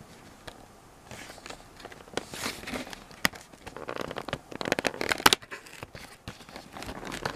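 Cardboard advent calendar door being pushed in and torn open with a finger: irregular crackling and tearing of card with several sharp snaps, the loudest a little past the middle.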